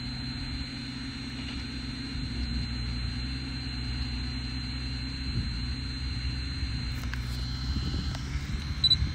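Landini Mythos tractor's diesel engine running steadily while pulling a cultivator through a field, with a brief knock near the end.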